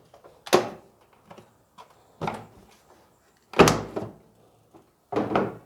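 Hard plastic clunks and rattles, four in all with the loudest about two-thirds of the way through, as the air cleaner housing on the engine is unclipped and its cover pulled loose; the engine is switched off.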